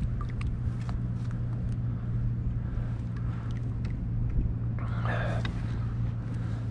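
Small splashes and water drips as a northern pike is held by the tail in the water beside a kayak to revive it, over a steady low hum. A short splash comes about five seconds in.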